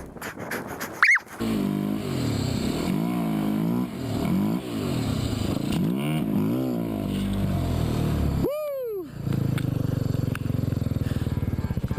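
A vehicle engine revving up and down over and over under changing throttle, then running with a faster, steadier pulse near the end. A loud, short rising chirp cuts in about a second in, and a short falling tone sounds about two-thirds of the way through.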